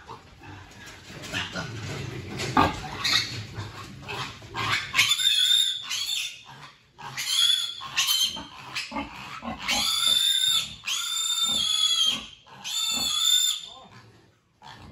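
Piglet squealing while it is picked up and held: a series of about five long, shrill squeals in the second half. Before the squeals come scattered knocks and clatter.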